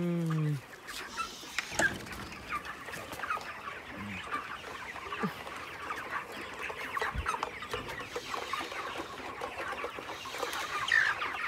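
A large flock of broiler chickens clucking and chirping, many birds calling over one another.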